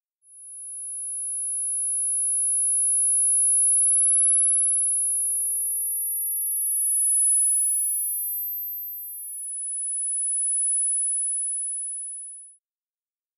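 Synthesized tinnitus neuromodulation sound: several very high-pitched pure sine tones, each held steady for a few seconds at a slightly different pitch, overlapping and handing over to one another. The sound fades in at the start and stops shortly before the end.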